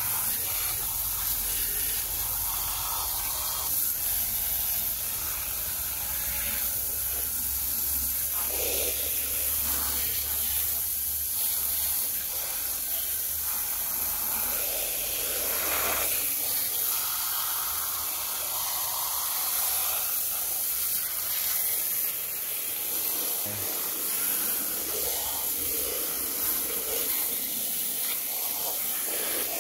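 A fine jet of water from a spray nozzle hissing steadily as it hits and rinses muddy plastic toys, with small changes in the spatter as the spray moves over them.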